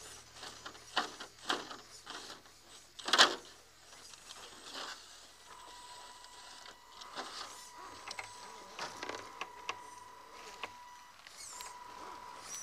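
Radio-controlled scale rock crawlers crawling over rock: scattered clicks and knocks from tyres, chassis and plastic parts, with one sharp knock about three seconds in as the loudest sound. From about five and a half seconds in, a steady electric-motor and gear whine joins.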